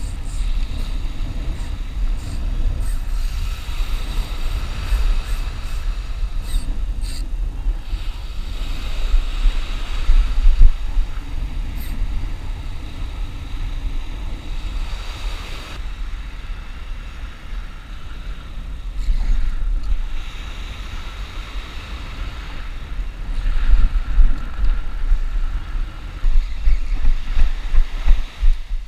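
Wind buffeting the camera microphone in a constant low rumble, with surf breaking and washing up the beach, swelling louder about ten seconds in and again near the end.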